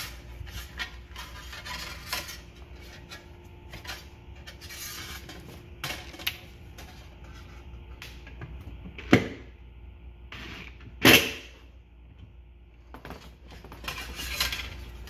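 Metal parts of a small outboard's recoil starter clicking and rattling as they are handled and fitted together, with two sharp knocks about nine and eleven seconds in.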